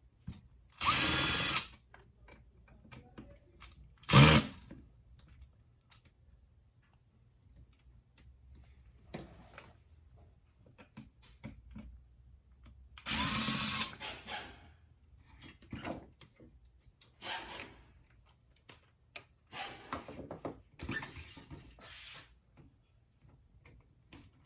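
Small electric screwdriver driving out the screws that hold a cooling fan to a circuit board, run in several short bursts of about a second each, with light clicks of handling between them.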